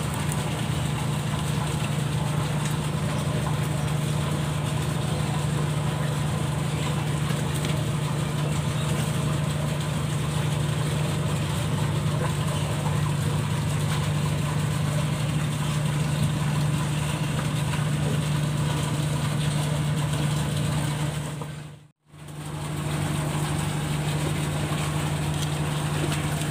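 A large engine running steadily with a low, even hum, breaking off for a moment near the end.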